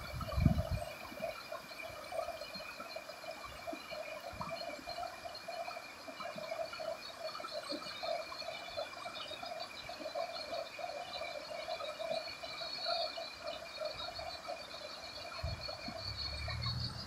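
Shallow river running over a stony bed, with a steady pulsing chorus of calling animals over it and a continuous high tone that cuts off suddenly near the end. A low thump comes about half a second in.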